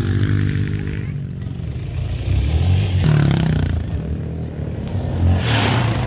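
Case TV450 loader's diesel engine running, its note rising and falling as it is worked, with two louder surges in the middle and near the end.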